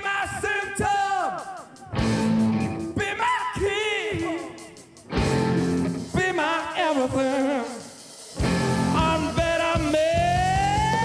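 Rock band playing live: male lead vocal over electric guitars, bass and drums. The band drops back between sung phrases a few times, then comes in full near the end under one long held vocal note that slides upward.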